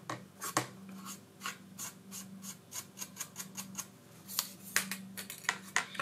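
Quick, repeated scrubbing strokes along a tablet's plastic frame, about four a second, cleaning off dust so the glue will stick.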